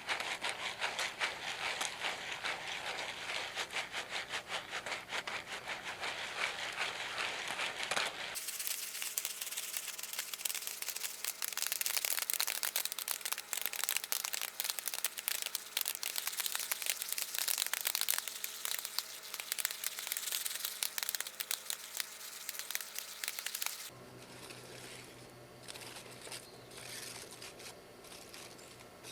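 Campfire crackling and snapping: a dense run of irregular sharp pops. It thins out and gets quieter near the end.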